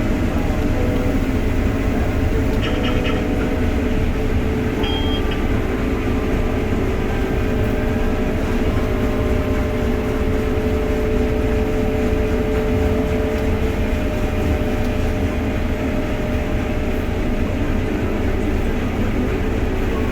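Case IH 7250 combine with a draper header running steadily while harvesting grain sorghum: a constant low rumble with a steady mid-pitched whine. Two brief high electronic beeps sound a few seconds in.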